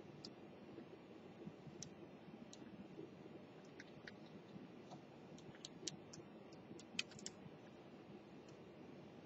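Keys of a Karlax hand-held controller clicking under the fingers: scattered sharp clicks, coming thicker in the second half and loudest about seven seconds in, over faint room hiss.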